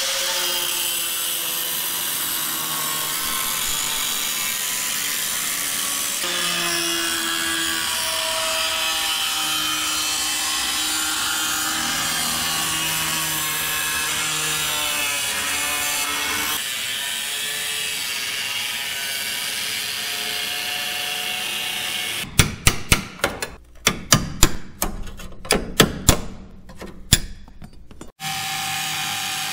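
Power tool cutting through sheet-steel body panel along a marked line, running steadily with its whine wavering in pitch under load. Late on it breaks into a string of short, sharp, uneven bursts, then runs steadily again.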